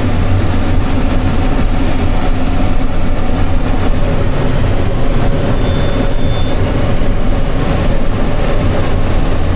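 Combine harvester running steadily while harvesting corn, a constant low engine hum under a wide mechanical rush. A short faint high tone sounds for about a second near the middle.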